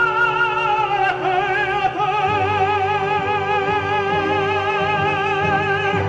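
Operatic singing: a voice steps down in pitch about a second in and then holds one long high note with a wide vibrato, over steady instrumental accompaniment.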